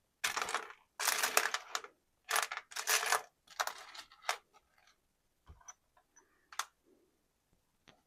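Small metal hardware being handled and worked by hand: five short scratchy bursts in the first four seconds, then three light metallic clicks spaced about a second apart.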